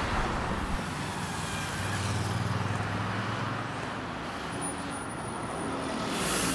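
Busy city road traffic, with cars and buses passing and a steady rumble. A low engine hum rises about two seconds in, and a short sharp hiss comes near the end.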